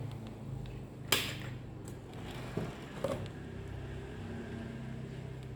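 A steady low hum with a few sharp clicks over it: the loudest about a second in, two lighter ones around two and a half and three seconds in.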